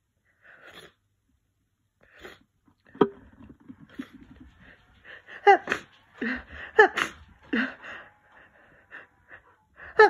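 A person's congested allergy sneezes, several in quick succession, the loudest two coming a little past halfway through.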